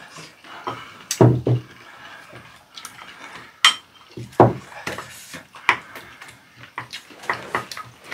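Metal spoon and chopsticks clinking and scraping against ceramic bowls, in scattered short clicks, with a few louder knocks of dishes on the table.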